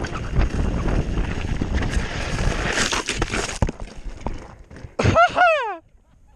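BMX bike tyres rattling over rough, stony dirt, then a few hard knocks about three seconds in as the bike and rider crash. Near the end there is a short, loud, pained cry in two pulses, after which it goes quiet.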